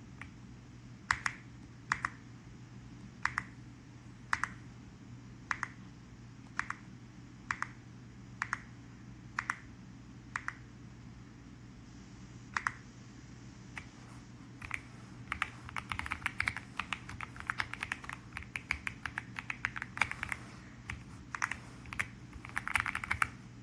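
Mechanical keyboard keys being pressed: single keystrokes about once a second at first, then from about halfway in, faster typing in quick runs of clicks, over a low steady hum.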